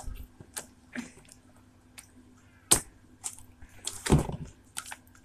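Plastic tub of slime handled and turned over in the hands: scattered light clicks and taps, a sharp click about two and a half seconds in, and a louder knocking rustle around four seconds.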